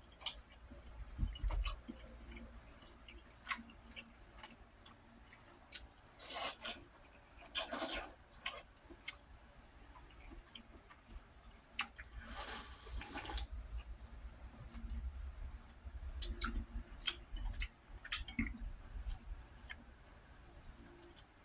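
Close-up eating sounds of a person eating ramen: soft chewing and small clicks of utensils and dishes, broken by short slurps, the longest about twelve seconds in.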